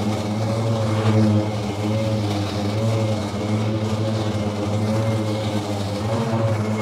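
EGO 52-inch battery-powered riding mower running while it cuts tall grass: a steady whirring hum from its electric blade motors and spinning blades, with a faint high whine above it. It swells briefly about a second in.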